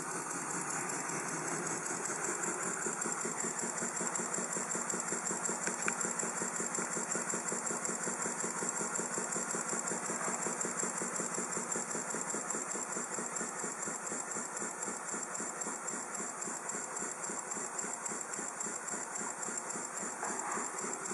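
Stew Hart's "Dads & Lads" model single-cylinder horizontal mill engine running steadily, with a rapid, even beat and a steady high hiss over it.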